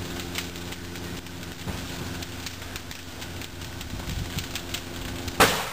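Burning pickup truck crackling and popping over a steady low hum, then a single sharp, loud bang near the end as a tyre bursts in the fire.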